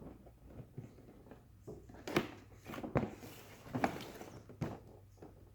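Cardboard toy box being opened by hand: rustling and handling, with four sharp clicks or snaps about a second apart from about two seconds in.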